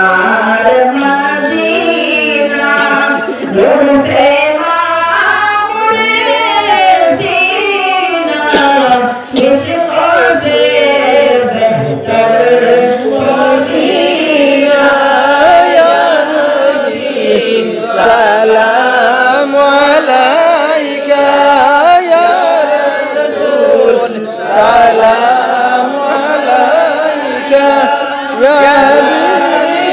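A boy singing a naat, a devotional song in praise of the Prophet, into a microphone, with a group of men singing along in chorus.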